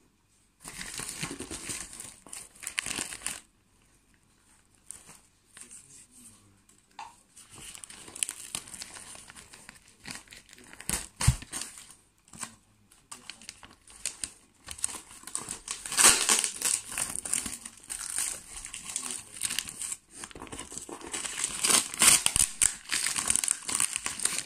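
Paper wrapping and packing tape being crumpled and torn off a parcel, in irregular crinkling, tearing bursts that grow busier and louder in the second half.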